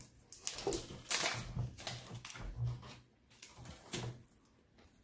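Foil trading-card booster-pack wrapper crinkling and cards being handled: a string of short rustles and taps, thinning out over the last second or so.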